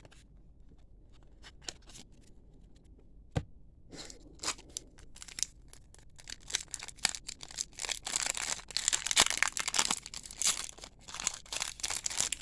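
A trading card pack's wrapper being torn open and crinkled: a few faint clicks at first, then crackling tearing and crinkling from about four seconds in, loudest over the last few seconds.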